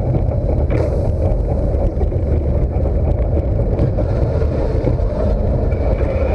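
Steady heavy rumble of a moving amusement ride with wind buffeting the microphone.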